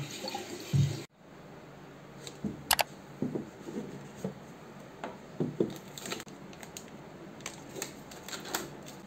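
Water from a bottled-water dispenser running into a glass with a brief glug. After that come light clicks, taps and rustling as a cardboard tube canister is opened and plastic stick sachets are handled. One sharp click stands out.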